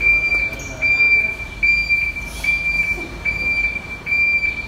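Tractor reversing alarm beeping: a high, steady tone broken by short gaps a little more than once a second.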